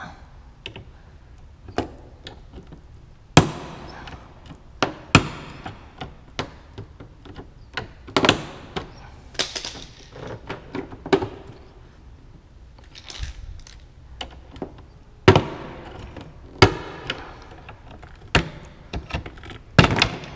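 A screwdriver prying the side vent trim off a Toyota MR2's quarter panel, its plastic retaining clips popping: an irregular run of sharp clicks and knocks, a few of them loud snaps.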